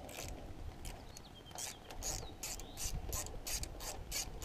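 Socket ratchet clicking in short rasping strokes as it loosens the 8 mm bolts on an idle air control valve, the strokes coming closer together toward the end.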